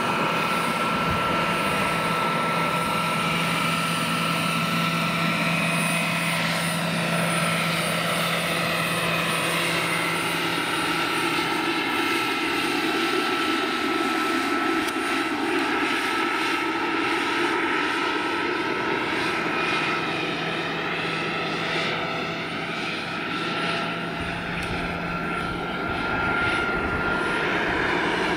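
Jakadofsky Pro 6000 model gas turbine powering a large radio-controlled scale Aérospatiale Gazelle helicopter in flight: a steady turbine whine with the rotor's noise, growing a little quieter for a few seconds near the end and then coming back.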